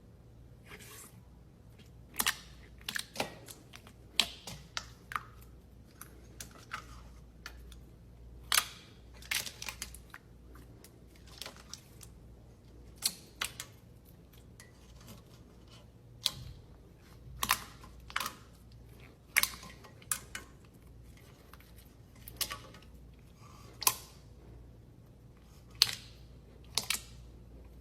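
Slime being pressed and poked, giving crisp clicks and pops at uneven intervals, roughly one or two a second, some much louder than others.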